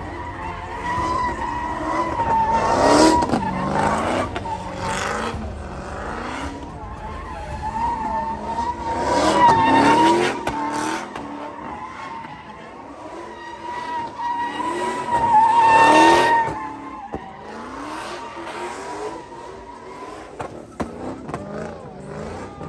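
A car spinning donuts: tyres squealing steadily on the asphalt while the engine revs in repeated rising sweeps, swelling loudest three times about six seconds apart.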